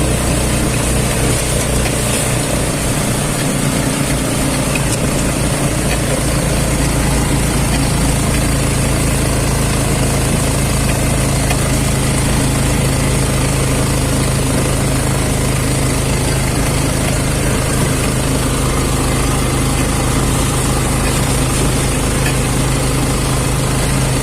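Vehicle engine running steadily with road noise, a constant low hum underneath.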